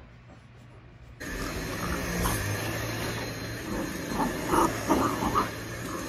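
Dyson cordless stick vacuum switched on about a second in and running steadily with a low hum and a high whine, with a few short louder sounds over it in the second half.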